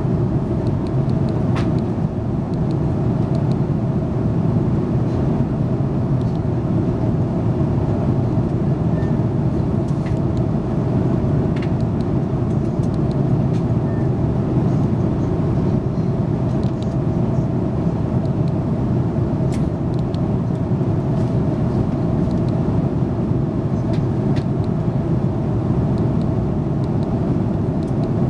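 Steady in-flight cabin noise of a jet airliner, a loud low rush with a faint steady hum, and a few faint clicks scattered through it.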